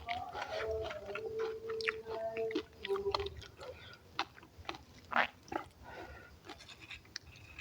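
A person chewing with open-mouthed smacking, many short wet clicks of the lips and tongue. A faint steady tone, changing pitch in steps, runs under the first three seconds.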